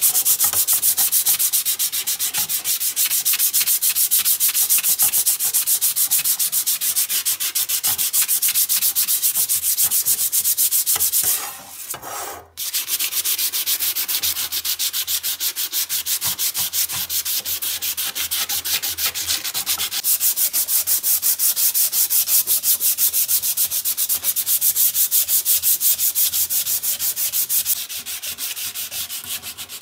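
Hand sanding of a rust-spotted steel sickle blade with cloth-backed sandpaper: rapid back-and-forth rasping strokes of abrasive on bare metal. The strokes stop briefly near the middle and turn lighter near the end.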